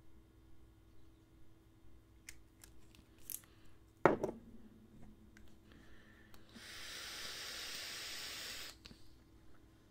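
Small clicks, then a sharp knock about four seconds in, then a steady hiss lasting about two seconds near the end. The hiss is a hit being drawn on a rebuildable dripping atomizer, its coil firing on freshly dripped e-liquid.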